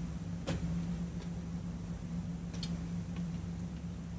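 Steady low hum of a cruise ship cabin, with one sharp click about half a second in and a few faint clicks near the middle.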